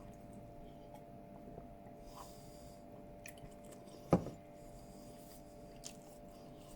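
Quiet chewing and small mouth and cutlery noises of someone eating, over a steady faint hum, with one sharp knock about four seconds in, like a utensil or container being put down.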